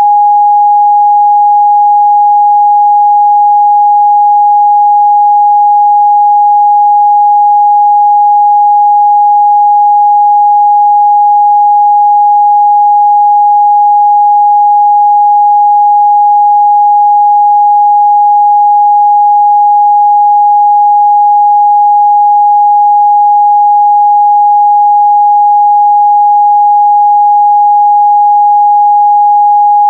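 A steady, loud, pure 826 Hz sine-wave test tone, one unbroken pitch with no other sound.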